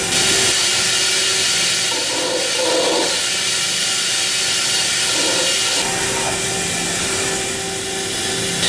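Mazak Integrex i-100ST multi-tasking CNC machine at work: a loud, steady hiss of coolant spray over a steady machine whine while it drills a 3 mm hole at 2500 rpm spindle speed. The hiss lessens about six seconds in.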